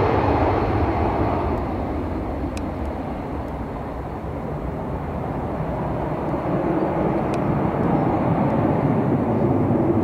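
Airbus A320 airliner's jet engines at take-off power during lift-off and climb-out: a steady deep roar that eases off somewhat partway through, then swells again toward the end.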